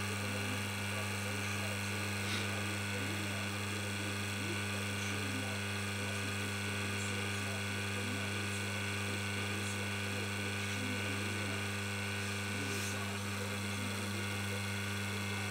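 Reverse osmosis system's booster pump running steadily with a low hum during its membrane flush cycle, water rushing through the unit.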